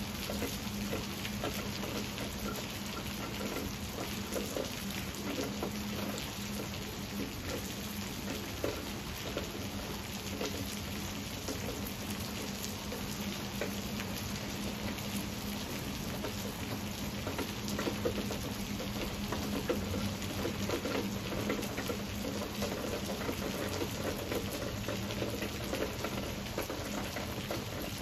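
Steady heavy rain falling on thick foliage and concrete, a continuous hiss dotted with countless small drop impacts.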